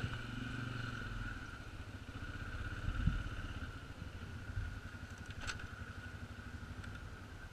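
Can-Am Outlander 400 ATV's single-cylinder engine running at low revs as the quad creeps over rough ground, with a thump about three seconds in.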